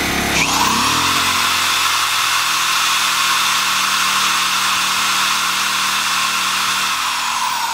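Corded hammer drill switched on about half a second in, spinning up with a rising whine and then running free with no load on the bit. Beneath it the Ryobi RYi1000 inverter generator's engine runs and ramps up to carry the load.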